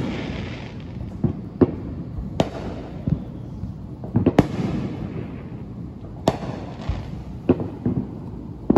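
Fireworks going off: a string of about ten sharp bangs at irregular spacing, each followed by a rumbling tail. The loudest come around four seconds in.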